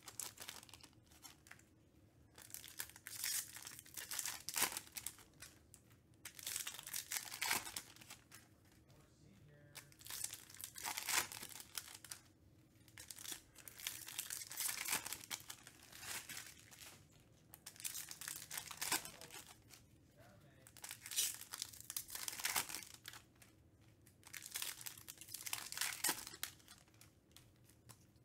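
Trading-card packs being torn open and the cards handled: short crinkling, rustling bursts of wrapper and card noise, one every second or two.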